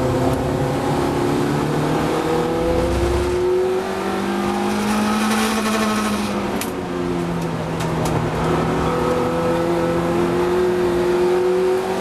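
Race car engine under load, its pitch climbing steadily, dropping sharply about four seconds in, climbing again, then falling and rising once more toward the end. A couple of sharp clicks come in the middle.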